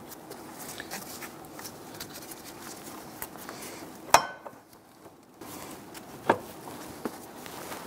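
New water pump housing being worked down into place between engine parts by gloved hands: light handling rustle and taps, with two sharp metallic knocks about four and six seconds in, the first ringing briefly.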